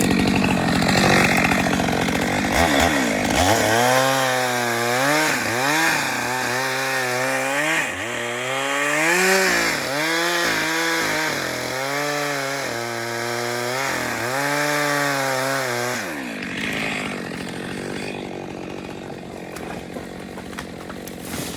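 Two-stroke chainsaw cutting a log for a fence post. It runs loud and rough at first, then its engine note swings up and down in swells of about a second each for over ten seconds as it works through the wood, and drops to a quieter hum near the end.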